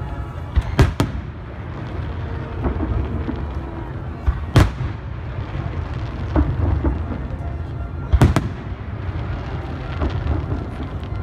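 Aerial firework shells bursting: sharp bangs, a pair about a second in, one at about four and a half seconds and another pair a little after eight seconds, over a steady low rumble of more distant bursts.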